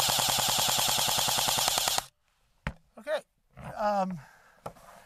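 Barra 400e battery-powered (AEG) BB rifle firing a full-auto burst of steel BBs: a rapid, even rattle of shots that cuts off abruptly about two seconds in. A single click follows, then a short voice sound near the end.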